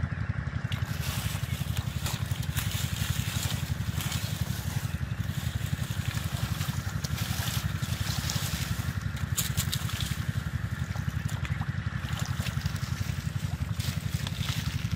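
Muddy shallow water splashing and sloshing, with wet water hyacinth being pulled and rustled, as hands work through the mud by hand. A steady low engine-like drone runs underneath.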